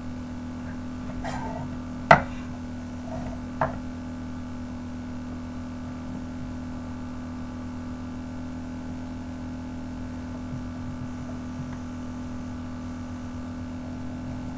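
A few knocks in the first four seconds, the loudest about two seconds in, as a loaf of soap is pushed into place on the metal plate of a wire soap cutter, over a steady low hum.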